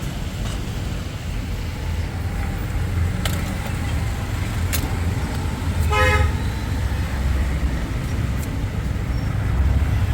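Street traffic running as a steady low rumble, with one short vehicle horn honk about six seconds in and a few faint clicks.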